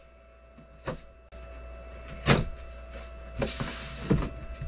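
Cardboard box being cut open with a box cutter: a few sharp knocks of the cardboard being handled, the loudest a little over two seconds in, and a short rustling scrape of the blade through the packing tape.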